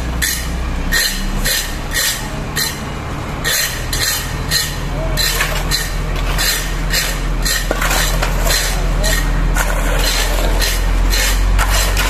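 A concrete mixer truck's diesel engine runs with a steady low hum, while shovels and rakes scrape through wet concrete in repeated strokes, about two a second.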